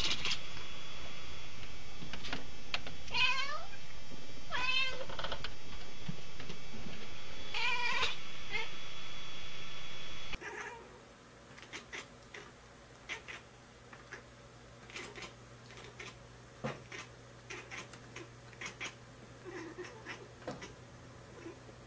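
Domestic cat meowing: about five short calls, each wavering in pitch, in the first ten seconds. About ten seconds in, the sound drops to a quiet background with scattered soft clicks.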